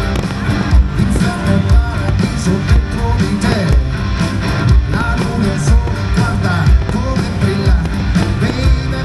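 Loud show music with guitar and a singing voice over a heavy low beat that thumps about once a second.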